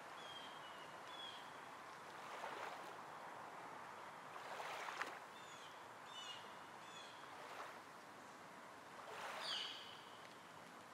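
Small songbirds chirping in short, high, falling notes, a few at a time, three or four times, over a faint steady outdoor rush that swells now and then.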